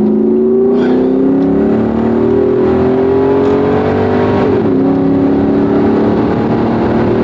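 Supercharged Mercedes M119 V8 accelerating hard under kickdown, its revs climbing steadily. The automatic gearbox upshifts about four and a half seconds in and the note drops, then carries on pulling.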